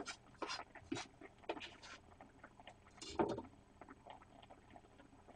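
Faint clicks and knocks of a kitchen knife on a plastic cutting board as it is handled and set down, several in the first two seconds, then a louder thud about three seconds in.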